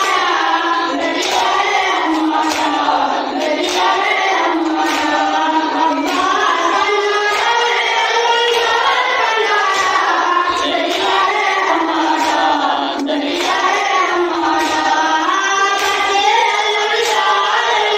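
A boy chanting an unaccompanied noha, a Shia lament, with a group of men's voices joining in. Their hands beat their chests in matam in a steady rhythm of about one beat every second and a quarter.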